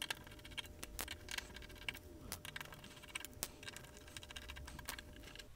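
Faint, scattered small clicks and taps of hand work on a hard disk: a Torx 9 screwdriver turning the controller board's screws, and the small circuit board being lifted off the drive's metal case.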